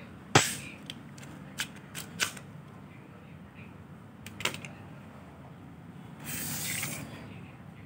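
Sharp plastic clicks and clacks as a repaired plastic match gun is handled, the loudest just under half a second in and a few smaller ones over the next four seconds, then a short rustling scrape a little past six seconds.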